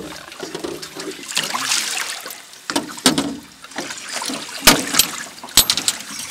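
Water splashing and trickling from a landing net holding a freshly caught fish at the side of an aluminum boat. Three sharp knocks come near the end.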